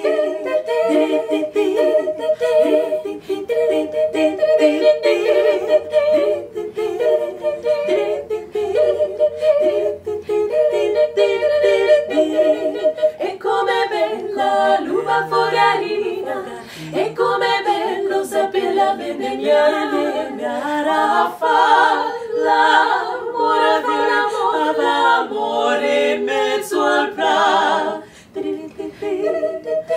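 Four women's voices singing a cappella in close harmony: held chords at first, turning to quicker, busier lines about halfway through, with short percussive clicks among the voices.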